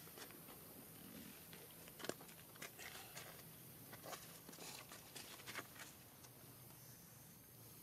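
Near silence with faint, scattered clicks and rustles, the sharpest about two seconds in, dying away after about six seconds.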